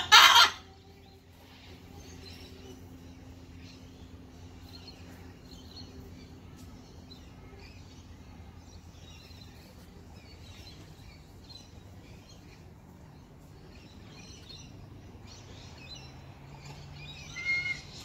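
A loud, harsh parrot screech right at the start, then wild birds chirping and chattering, among them lorikeets and cockatoos. Another louder pitched call comes near the end.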